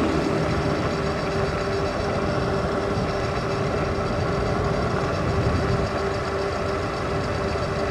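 Steady wind and road noise from riding a Super73 electric bike converted to 72 volts, with a faint steady whine held throughout.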